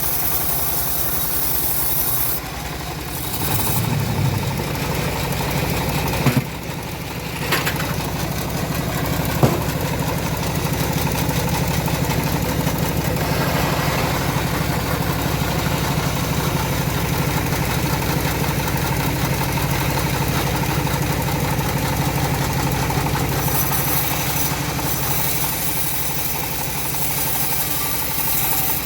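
Engine of a homemade bandsaw mill running steadily, with a couple of brief dips in level and a single sharp knock about nine seconds in.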